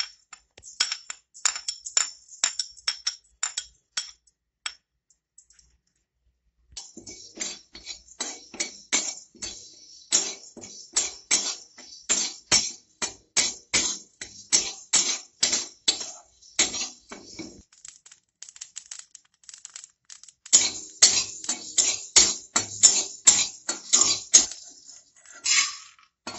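Steel spatula scraping and tapping against a dry metal kadai as black peppercorns and cumin seeds are dry-roasted, in quick runs of strokes with a short pause a few seconds in and the densest stirring near the end.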